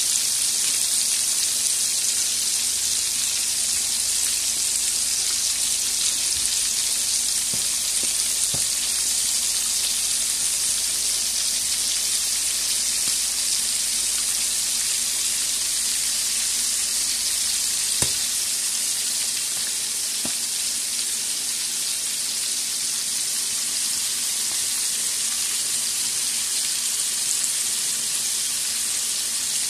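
Flour-dredged sardines shallow-frying in hot oil in a metal pan, giving a steady sizzle. There is one light click about two-thirds of the way through.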